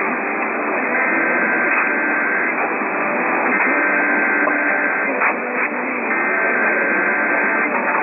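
AM radio broadcast of an Emergency Alert System Required Weekly Test: three bursts of the warbling digital SAME data tones, each about a second and a half long, heard through hissy, narrow-band AM reception.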